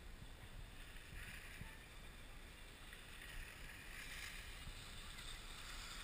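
Skis sliding and scraping over packed snow as skiers glide close past, a hiss that swells twice, over a low rumble of wind on the microphone.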